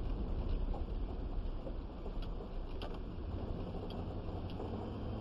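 Truck driving along the road, its steady low engine and road rumble heard from inside the cab, with a few faint ticks.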